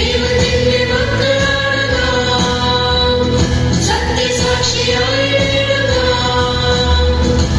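A song sung by several voices together over instrumental accompaniment with a steady beat.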